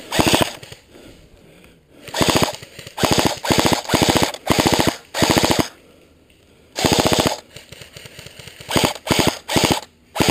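Airsoft electric rifle firing a string of short full-auto bursts, each a rapid rattle of shots lasting under half a second to about half a second. There are brief pauses between the bursts and a longer lull around the middle.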